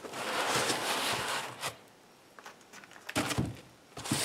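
White foam packing blocks rubbing and scraping against a cardboard box as a foam-packed unit is worked up and lifted out of it. There is a long scrape through the first second and a half, a few knocks a little past three seconds, and more scraping near the end.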